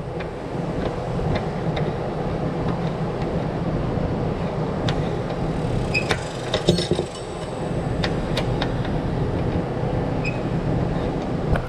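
Steady engine rumble from a vehicle on the move, with scattered clicks and rattles and a brief dip about seven seconds in.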